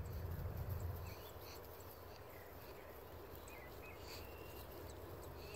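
Faint outdoor ambience: scattered short bird chirps and little whistled glides over a low wind rumble that is strongest in the first second.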